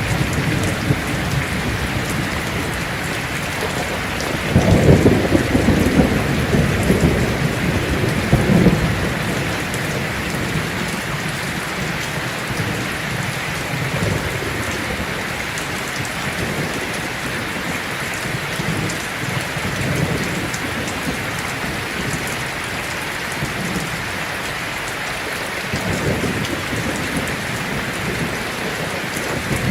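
Heavy rain drumming steadily on a tin roof, with low rolls of thunder rumbling under it, loudest about four to nine seconds in and again near the end.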